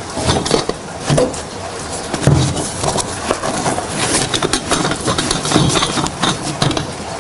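GSI Ketalist anodized-aluminium kettle-pot kit being packed away: light clicks and knocks of the pot, lid and plastic spork, over a continuous rustle of its stuff sack.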